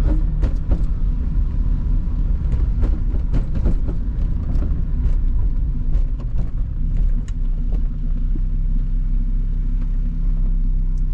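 Car engine running steadily, heard from inside the cabin as a low rumble with a steady hum. Scattered light ticks and taps come through, mostly in the first half.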